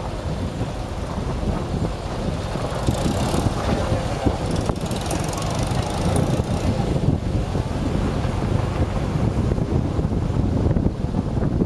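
Car driving slowly along a gravel lane: its engine runs under a steady low rumble of road noise, with wind buffeting the microphone.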